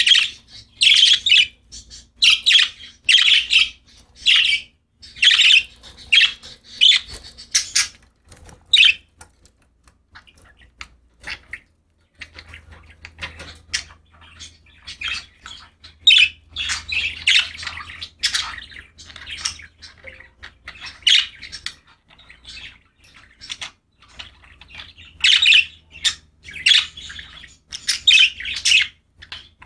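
Pet budgerigars chirping and chattering in quick runs of short, sharp calls. They go briefly sparse about nine seconds in, then pick up again.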